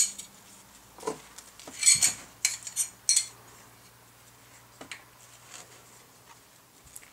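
Metal ski-tuning tools clinking and clattering as they are handled, with a run of sharp metallic clinks in the first three seconds, then only a few faint taps.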